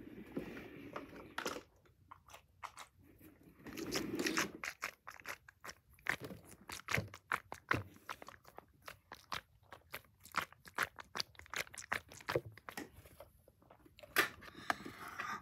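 Close-up ASMR handling sounds from a juice box held near the microphone: a few crackly rustles, then a fast, irregular run of crisp taps and clicks, with sipping through the box's straw near the end.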